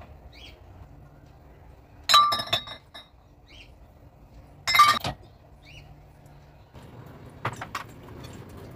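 Glass bottles in a refrigerator clinking against each other twice, about two and five seconds in, each clink ringing briefly. Near the end a kitchen tap starts running, with a few knocks of dishes in the sink.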